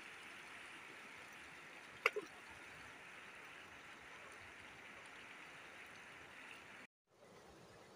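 Irrigation-channel water running and rushing past the bank, a steady hiss of flowing water, with one brief sharp sound about two seconds in. It cuts off suddenly near the end.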